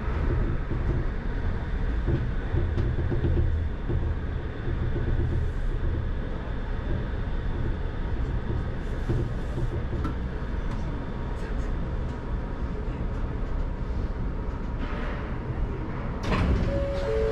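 Shonan Monorail car heard from inside, a steady low rumble of the running gear and motors. Near the end there is a short rattle, and then a two-note tone starts alternating.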